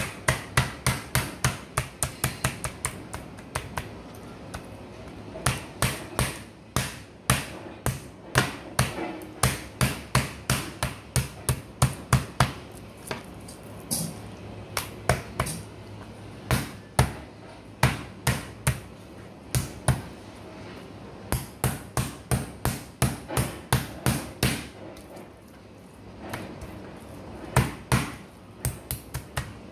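Metal meat-tenderizer mallet pounding raw chicken breasts on a plastic cutting board: sharp repeated strikes, about three a second, in runs broken by short pauses.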